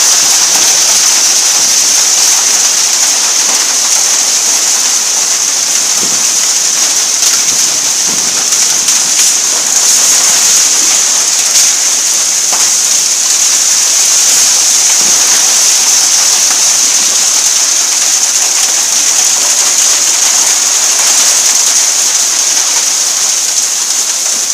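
Heavy rain pouring down steadily during a storm.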